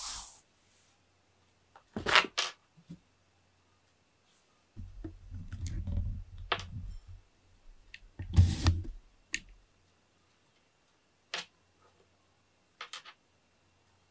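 Scattered thumps, scuffs and clicks of a cat playing with a ribbon wand toy on foam floor mats. There is a sharp thump about two seconds in, a low scuffling rumble from about five to seven seconds, another thump near the middle, and a few faint clicks toward the end.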